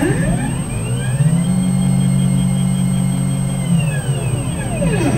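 Stepper motors of a gantry CNC machine whining through one move of the thread-laying head: the pitch rises over about a second and a half, holds steady, then falls away near the end. A thin, steady high tone runs under it.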